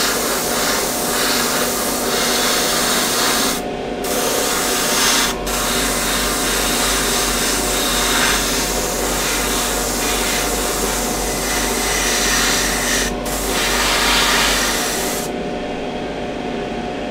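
Gravity-feed airbrush spraying paint: a steady hiss of air, broken by short pauses about four, five and a half and thirteen seconds in, and dying away about fifteen seconds in, over a steady low hum.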